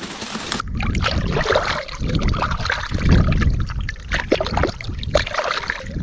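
Water trickling and splashing, with many irregular crackles over a low rumble.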